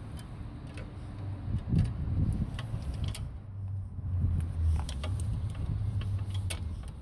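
Scattered light metallic clicks and ticks from drum brake parts and tools being handled, over a low steady rumble.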